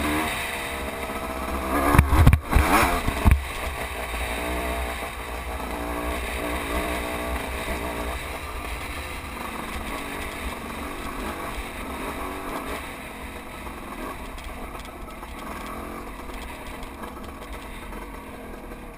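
Off-road vehicle engine running at varying revs over a rough, rocky dirt trail, with wind and rumble on the microphone. A few loud thumps come about two to three seconds in, and the engine eases off toward the end.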